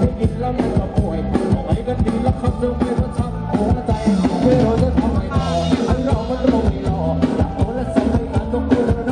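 Live band music from a Thai rot hae sound truck: a male singer with drums, electric guitar and keyboard, played loud through the truck's speaker stacks over a steady drum beat.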